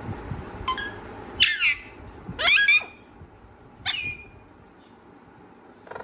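Parrot squawking: four short calls with quick sliding notes in the first four seconds, the second and third the loudest.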